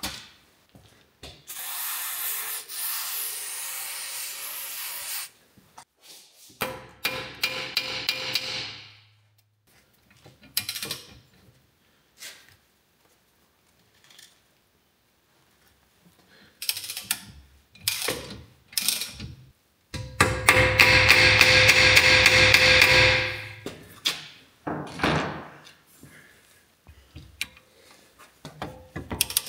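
Tool work on the M12 triple-square bolts holding a 2016 VW Jetta's front wheel bearing to the steering knuckle: three bursts of a power tool running for a few seconds each, the last the loudest, with clicks and metal knocks of a wrench between them.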